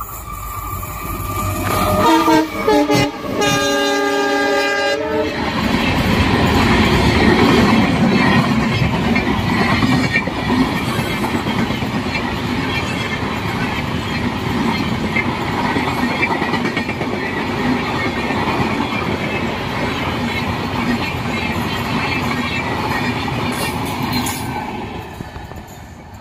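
Indian Railways WDP4 diesel locomotive sounding its multi-tone horn for about three seconds as it approaches and passes, the pitch dropping as it goes by. Then a high-speed passenger train's LHB coaches rush past with a steady clatter of wheels on rail joints, fading near the end as the last coach recedes.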